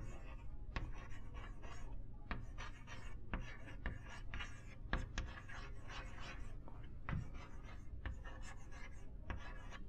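Chalk writing on a chalkboard: scratchy strokes with many small sharp taps as the letters are formed.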